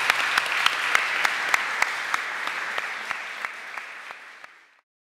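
Audience applauding, with one clapper near the microphone standing out at an even pace of about three claps a second. The applause fades gradually and is cut off shortly before the end.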